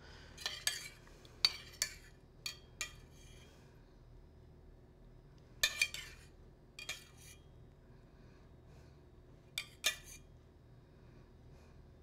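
A metal spoon clinking against a stainless steel saucepan and a ceramic plate while sauce is spooned out, with faint scraping. The light clinks come in small clusters near the start, around six seconds in and near ten seconds.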